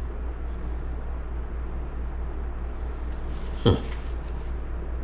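Faint clicks of small metal chainsaw clutch parts being handled over a steady low hum, with one short sound falling sharply in pitch about three and a half seconds in.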